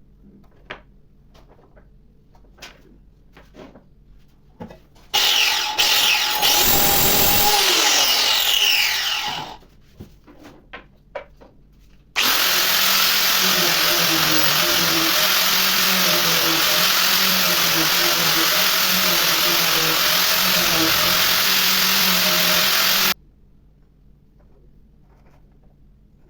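A handheld power tool's motor runs twice. The first is a burst of about four seconds that winds down at the end. The second is a steady run of about eleven seconds that cuts off abruptly. Light clicks and taps come between the runs.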